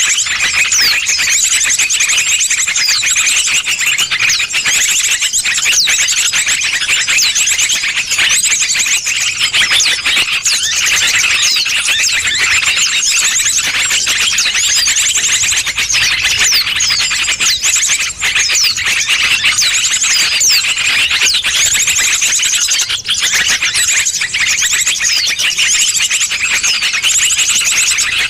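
A dense, unbroken chorus of high-pitched small-bird chirps and rapid trills, many calls overlapping. This is a bird-lure (pikat) recording meant to draw wild birds in.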